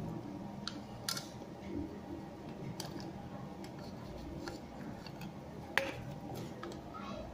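Scattered light clicks and taps as a hard drive's logic board is handled and set back onto the drive, with the sharpest click a little before the end.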